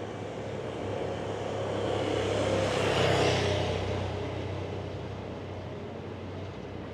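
A motor vehicle passing by on the road: it grows louder to a peak about three seconds in, then fades away, over a steady low hum.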